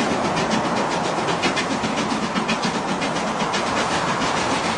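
Steam train running, a steady fast clatter.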